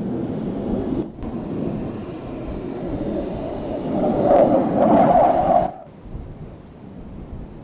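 Jet aircraft noise on an airfield apron: a low rumble with a steady high whine over it, mixed with wind on the microphone. It grows louder for a couple of seconds, then drops off abruptly to a quieter rumble.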